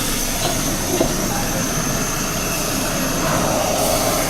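Steady rushing roar of a street-food stall kitchen, with a faint knock about a second in.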